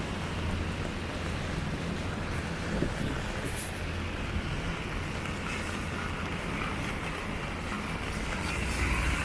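Heavy rain falling on an umbrella and splashing on wet pavement: a steady hiss with a low rumble underneath, growing a little louder near the end.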